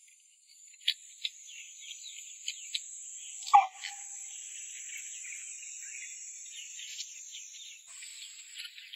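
Wet sucking and lip-smacking of someone eating meat and marrow off braised beef bones, with sharp smacks about a second in and a louder one about three and a half seconds in. A steady high insect drone runs underneath.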